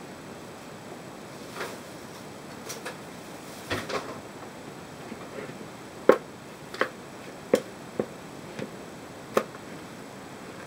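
A metal spoon or fork clicking and knocking against a plastic bowl and a china platter while marinated beef is moved between them, about ten separate taps, the loudest about six seconds in.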